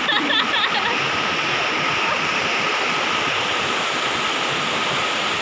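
Muddy floodwater of a swollen river rushing past, a steady even rush of water noise.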